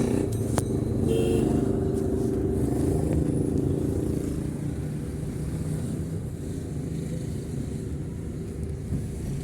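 Road traffic: the steady low rumble of car engines on a town street, easing a little quieter about halfway through.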